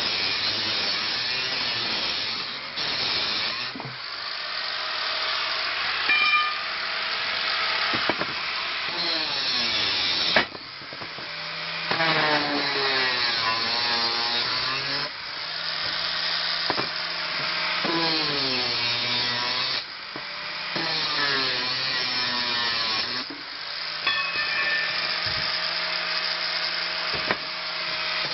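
Angle grinder cutting the steel ends off brass bed parts. Its motor whine sags and recovers again and again as the disc bites, with a few brief drops in level between passes.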